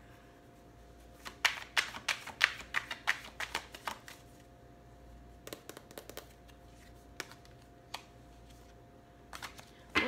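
Tarot cards being shuffled and handled: a quick run of card flicks and taps for about three seconds, then a few scattered single taps.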